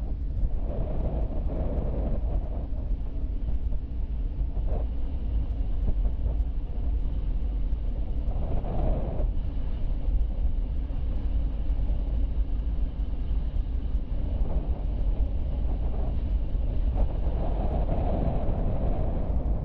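Car driving at steady speed, heard from inside the car: a continuous low rumble of road, tyre and engine noise that swells and eases a little now and then.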